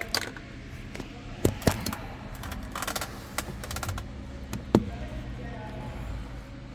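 Scattered light clicks and taps of multimeter probes and wiring being handled, with one sharper tap about two-thirds of the way through.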